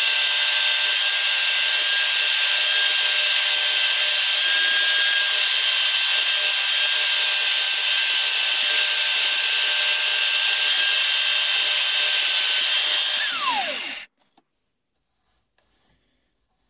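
Electric drill running at steady speed, spinning the horn ramrod tip on a homemade drill-powered mini lathe during its final fine grind by hand. Near the end the drill is released: its whine falls and it stops.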